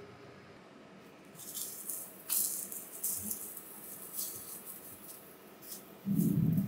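A galette sizzling in a frying pan while a wooden spatula scrapes and works under it, in short bursts of scraping. About six seconds in there is a louder low thump as the galette is lifted and turned in the pan.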